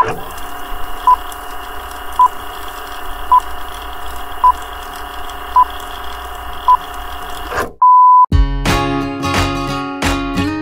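Film-leader countdown sound effect: a steady hum with a short beep about once a second, seven in all, then one longer held beep. Music with plucked guitar starts right after.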